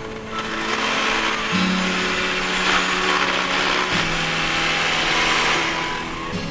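Background music: sustained chords changing every two seconds or so, over a steady hiss.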